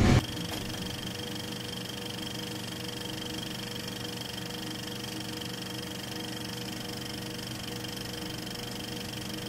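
Steady mechanical whir of a running film mechanism, an even hum with several constant tones and no change in pace.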